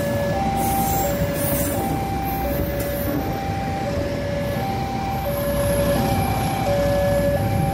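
Long-distance passenger train rolling past, a steady rumble of wheels on rail. Over it a two-tone level-crossing warning alarm sounds, alternating a low and a high note, each about two-thirds of a second long.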